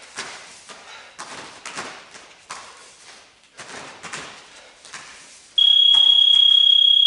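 Bare feet shuffling and thudding on foam mats during taekwondo shifts and kicks, then about five and a half seconds in a workout interval timer's loud, steady, high electronic beep sounds, marking the end of the exercise.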